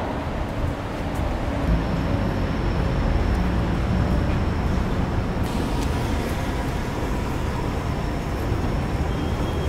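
Steady low rumble of a moving vehicle, with a faint high steady whine over parts of it.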